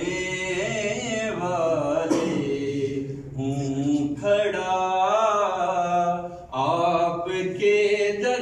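A man chanting an Islamic prayer recitation into a handheld microphone, in long melodic phrases of held, wavering notes with short breaths between them.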